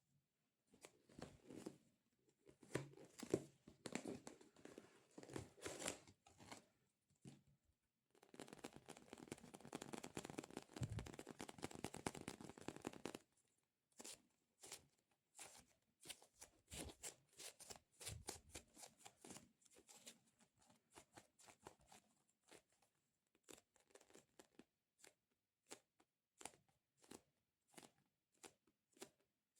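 Fingers working a sticky squishy toy: crackling, peeling sticky noise, densest for several seconds near the middle, then a string of quick sticky taps that become sparser toward the end.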